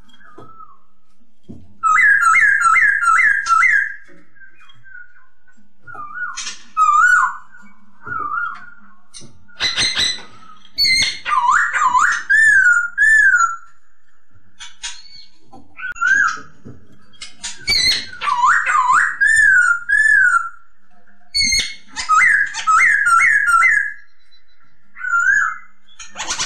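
Black-throated laughingthrush (poksay hongkong) singing: loud, clear whistled phrases in bursts of a few seconds, some as quick runs of four or five looping notes, others as slurred notes dipping and rising. A couple of short rasping noises fall between the phrases.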